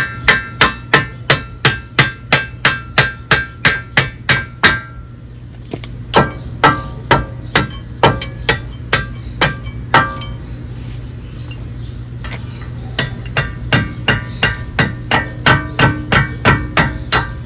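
Hammer blows on the end of the front CV axle, knocking it into the wheel hub. The blows come two to three a second with a metallic ring, in three runs broken by pauses about five seconds in and again around ten to thirteen seconds.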